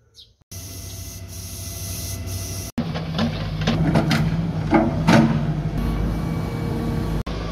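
A steady engine sound, then, after a cut, a Volvo wheeled excavator's diesel engine running, with several sharp metal clanks and scrapes from its arm and bucket.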